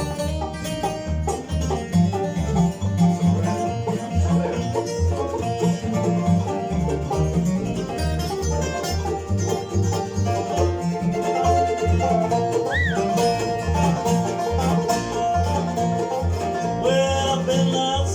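Bluegrass band playing an instrumental break between vocal lines, banjo to the fore over guitar and a steady bass beat.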